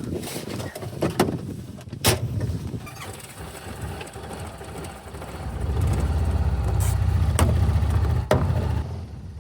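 Several sharp knocks and clunks from people getting into a Honda Pioneer 700 side-by-side, then its single-cylinder engine running with a low, steady rumble, loud from about halfway through.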